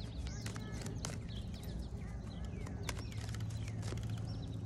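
A deck of cards being shuffled by hand, giving a run of quick, irregular clicks and taps, with a bird chirping now and then.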